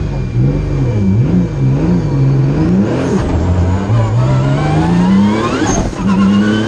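Engine of a roughly 1000 hp Nissan March race car, heard from inside the cabin. The revs rise and fall unevenly for the first three seconds, then climb steadily under hard acceleration, drop sharply at a gear change about six seconds in, and climb again. A high whine rises along with the revs.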